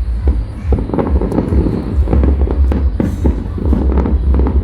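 Aerial fireworks shells bursting in quick, irregular succession, about a dozen sharp bangs, over a continuous low rumble.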